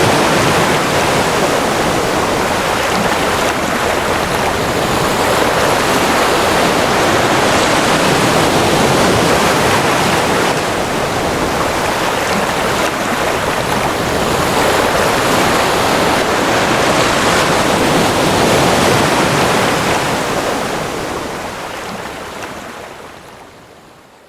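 Ocean surf: a steady, dense wash of breaking waves with slow swells in loudness, fading out over the last few seconds.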